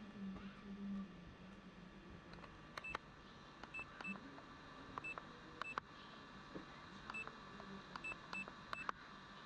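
Short, faint electronic beeps, each with a sharp click, about nine times at irregular intervals, like buttons being pressed on an electronic device, over a faint steady hum.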